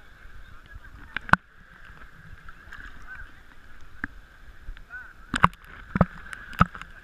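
Sea waves slapping and sloshing against a camera bobbing at the water's surface, the sound muffled, with sharp knocks of water against the camera now and then and several in quick succession near the end.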